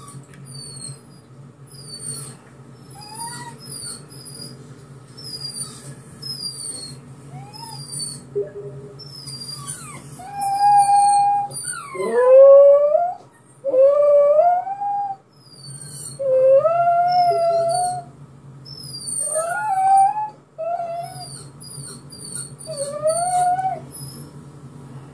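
Jack Russell terrier howling in reply to a recording of his own crying. High, thin, short falling whimpers come over and over for the first ten seconds. Then about half a dozen longer wavering howls rise and fall, the loudest about twelve seconds in.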